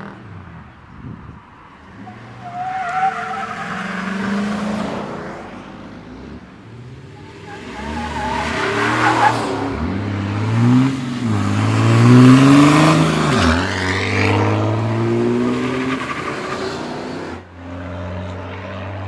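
Pickup truck engines driving past and accelerating, revving up and down in several rising pitch sweeps. The loudest pass comes about twelve seconds in, then a truck drops back to a steadier hum near the end.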